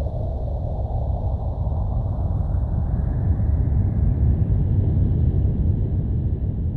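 Low, steady rumbling ambient drone of a horror soundscape, swelling slightly in the middle.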